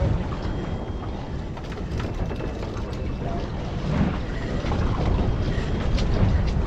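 Wind buffeting the microphone on a boat at sea, a steady low rumble, with faint scattered clicks from gear on deck.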